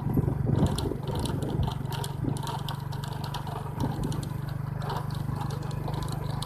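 A steady low motor hum with irregular rattling and clicking over it.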